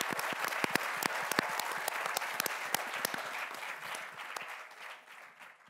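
Audience applauding, with many sharp individual claps standing out. The applause fades away over the last second or so.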